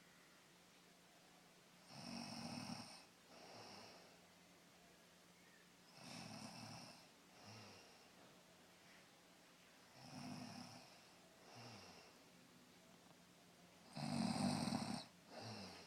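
A woman snoring in her sleep, about every four seconds: each time a longer snore followed a second later by a shorter, softer one. The last snore, near the end, is the loudest.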